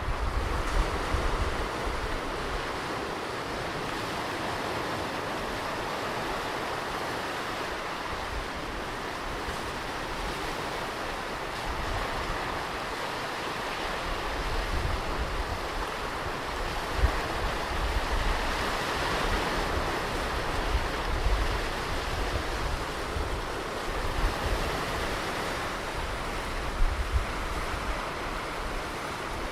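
Ocean surf washing onto a beach: a continuous hiss of breaking waves that swells and eases gently, with occasional low rumbles.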